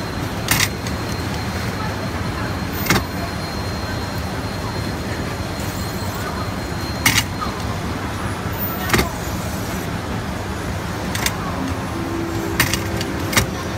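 Steady hum of machinery and hall background noise, with a handful of short sharp clicks and knocks scattered through it.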